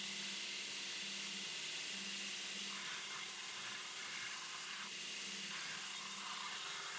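Faint, steady hiss with a low hum that comes and goes.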